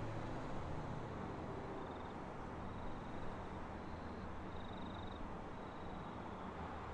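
Comeng suburban electric multiple unit pulling away, its low running hum and rail noise fading as it recedes. Faint high chirps come through a few times.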